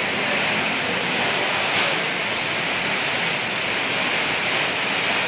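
Heavy rain driven by strong wind, a steady dense hiss of water pouring down, with a brief louder swell about two seconds in.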